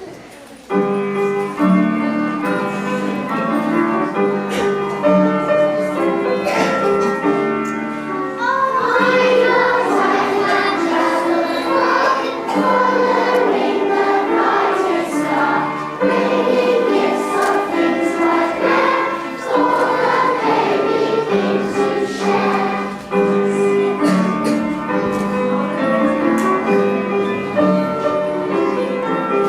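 Children's choir singing a Christmas song. An instrumental introduction of steady held notes starts just under a second in, and the children's voices join about eight seconds in.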